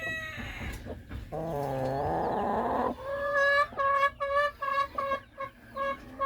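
Chickens calling: a long, wavering drawn-out call about a second and a half in, followed by a run of short, evenly pitched clucks, about three a second.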